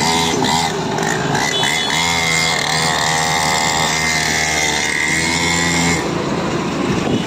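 Small 49cc petrol engine of a mini dirt bike running while riding in traffic, its pitch rising and falling with the throttle. A steady high whine sits over it from about two seconds in until about six seconds.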